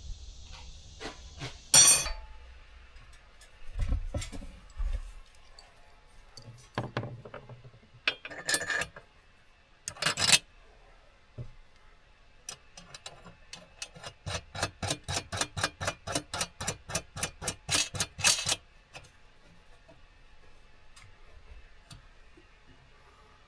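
Hand-tool work noise: scattered knocks and clatter, then a run of about eighteen quick, even strokes, about four a second, that stops abruptly.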